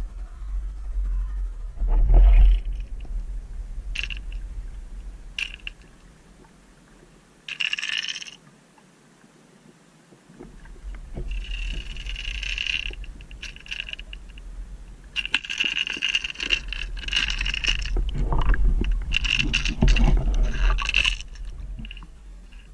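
Heard through an underwater camera: a steady low rumble of water with several bursts of rattling, each lasting a second or two, from a jerkbait being twitched and shaken by a largemouth bass that has taken it.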